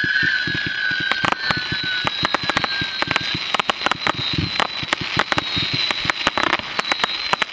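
Tiger's Revenge firework cake firing: a fan of whistling shots dies away over the first two or three seconds, under a rapid, dense string of cracks and pops from crackling stars.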